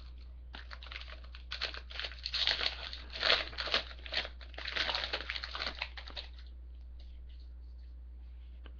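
Foil wrapper of a trading-card pack being torn open and crinkled by hand, a run of crackling rustles that stops about six seconds in.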